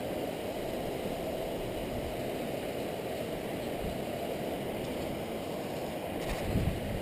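Steady, muffled rush of a shallow river flowing over stones, with a brief low thump about six and a half seconds in.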